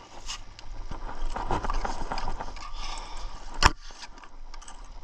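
A fishing rod and reel being worked as a steelhead is brought up into an ice hole: irregular mechanical clicking and rattling, with water splashing at the hole. A single sharp knock comes a little over halfway through.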